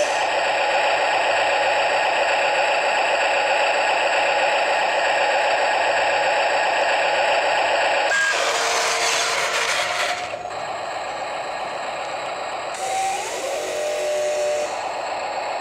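Radio-controlled Huina wheel loader running, a steady mechanical whine from its drive, with two bursts of noisier clatter and scraping, about eight seconds in and again near the end.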